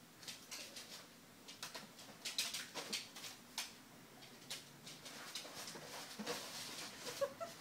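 Paper rustling and crinkling in irregular short bursts as a pocket beagle noses and digs through a pile of papers in a bin.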